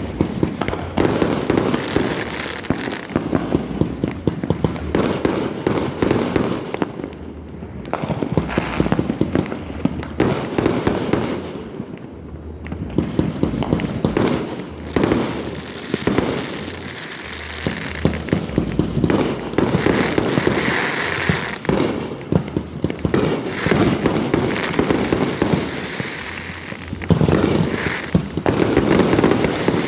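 Fireworks going off in a dense, continuous barrage of overlapping bangs and crackling pops, with a brief lull midway and a louder flurry near the end.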